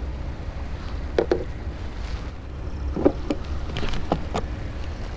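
Wind rumbling on the microphone over open water, with a few short, sharp knocks and clicks: a pair about a second in, then a cluster from about three to four and a half seconds in, the loudest just after three seconds.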